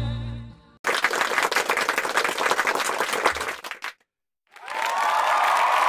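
Music fades out. Then applause, many hands clapping, runs for about three seconds and cuts off abruptly. After a brief silence, crowd noise with a steady held tone fades in near the end.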